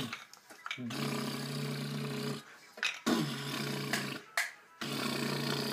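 A man's voice imitating an excavator's engine: three long, steady, low hums with short breaks between them. A few light clicks come from the wooden toy's parts being handled.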